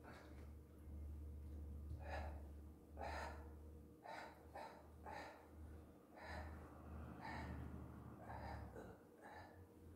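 A man's short, forceful breaths, about a dozen of them at an uneven pace, in time with his movements. A low steady hum runs underneath and stops near the end.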